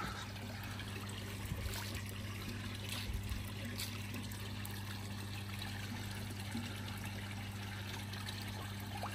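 Water from a koi pond's return pipe pouring steadily into the pond, with a steady low hum and a few faint splashes as koi feed at the surface.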